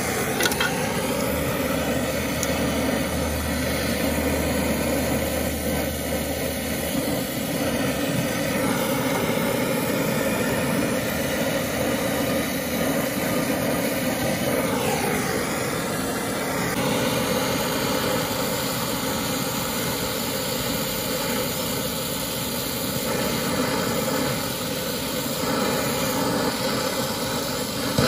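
Oxy-fuel brazing torch flame hissing steadily while copper refrigerant tubing at a freezer compressor is brazed; its tone shifts about halfway through.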